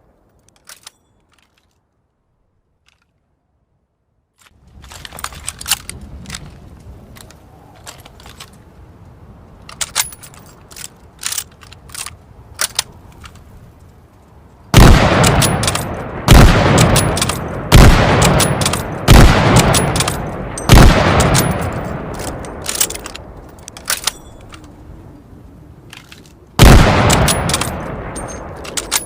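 Lee-Enfield bolt-action rifle firing five loud shots about a second and a half apart, then a sixth several seconds later, each ringing off in a long echoing tail, with sharp clicks between them. Before the shots come a few seconds of silence and then a run of light, sharp clicks.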